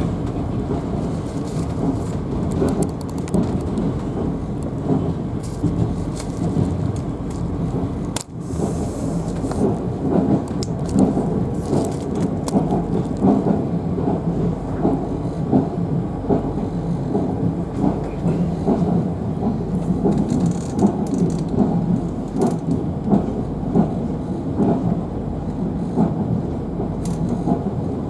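Passenger train running, heard from inside the carriage: a steady rumble of wheels on rails with a stream of clicks from the rails, the noise dipping briefly about eight seconds in.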